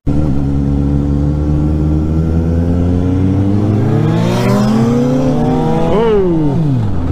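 Sport motorcycle engine under hard acceleration, its pitch climbing steadily to a peak about six seconds in and then dropping sharply, as at a gear change, over a steady low engine drone.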